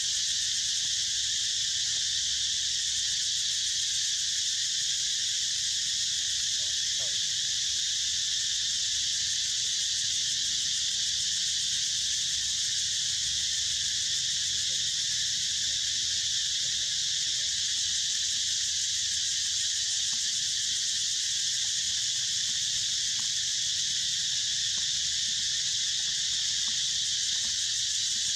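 Steady chorus of insects: a continuous high-pitched buzz that holds the same level throughout, over a faint low rumble.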